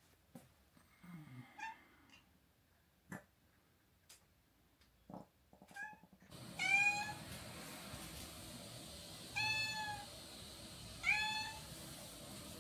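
A house cat meowing: a few soft, short meows and light clicks at first, then three louder, drawn-out meows in the second half. It is a cat pressing at the front door, wanting to be let out.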